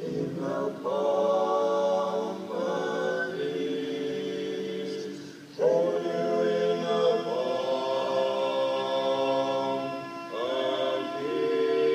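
Male vocal quartet singing a cappella in close four-part harmony, holding chords phrase by phrase. A new phrase comes in louder about five and a half seconds in.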